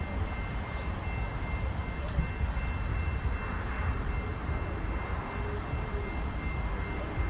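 Steady low engine rumble with a faint, constant high-pitched whine.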